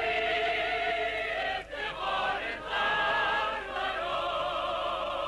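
Operatic choral singing: several voices holding long notes with vibrato, with a short break between phrases about a second and a half in.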